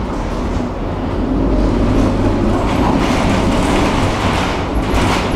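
Tram running along the track: a steady rumble of wheels on the rails with a motor hum, growing louder about a second and a half in, with a few brief knocks near the end.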